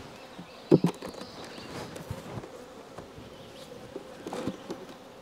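Honeybees buzzing steadily around open hives, with a couple of sharp wooden knocks about a second in and a few softer knocks near the end as a wooden hive super is handled.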